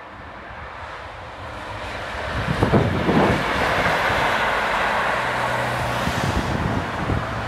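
Class 43 HST power cars with MTU diesel engines passing at speed. The rumble of wheels and engines builds to its loudest about three seconds in, then settles into a steady low engine hum as the train draws away.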